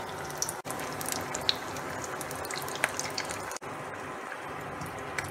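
Besan-battered bread cutlets deep-frying in medium-hot oil: a steady sizzle with frequent sharp crackles and pops. The sound drops out for an instant twice.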